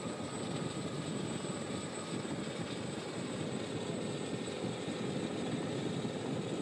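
Steady engine rumble and wind noise of the motor vehicles following a cycling race, picked up by the live broadcast sound, with a faint steady high whine.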